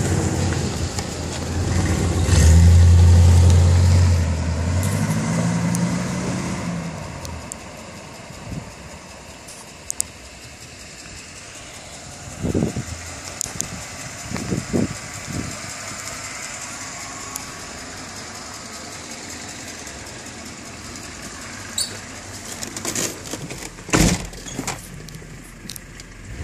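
A car engine running loud and steady for a few seconds, then fading away. After that there is low background noise with a few short knocks and clicks.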